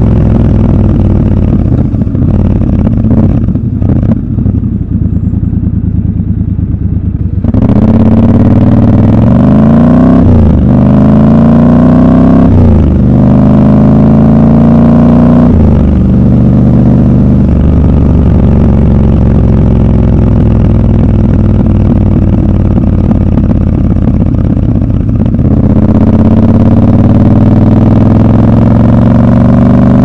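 Triumph Scrambler 1200 XC's 1200 cc parallel-twin engine on the move. It runs lower and steady for the first several seconds, then pulls away, its pitch climbing and dropping back at each of three gear changes. It settles into a steady cruise and picks up again near the end.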